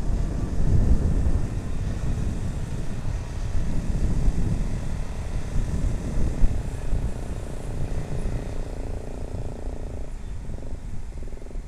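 Motorcycle engine running while riding, mixed with a heavy low rumble of wind on the microphone; the rumble eases a little near the end.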